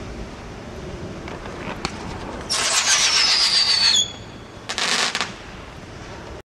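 Roman candle shot whistling as it climbs, the whistle falling steadily in pitch for about a second and a half, followed about a second later by a short burst of crackling from the crackling star.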